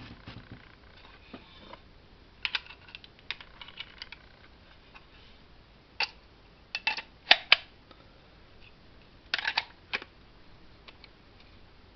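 Soviet FED 4 rangefinder camera being wound and fired at its one-second shutter speed during a check after repair: sharp mechanical clicks and short rattling clusters of clicks, the loudest a few seconds in and again near the middle, with quiet gaps between.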